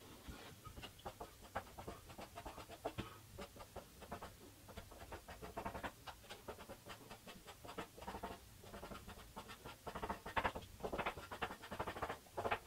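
Carpenter's pencil scratching over a primed filler patch on a masonite door in quick, short strokes, drawing in fake wood-grain lines. The scratching is faint and comes in bursts, busiest over the last few seconds.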